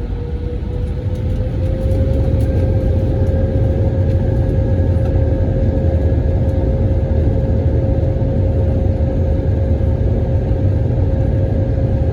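Airbus A321 jet engines and airframe rumble heard inside the passenger cabin: a deep, steady roar with a whining tone that rises slightly in pitch and loudness over the first two seconds, then holds steady.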